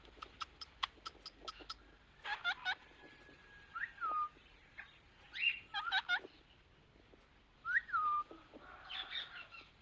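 Birds calling: a quick run of sharp clicks in the first two seconds, then scattered bursts of chirps, with a short falling whistle twice.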